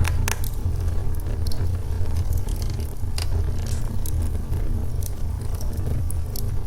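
Log fire burning in a fireplace: a steady low rumble of the flames with irregular sharp crackles and pops from the burning wood.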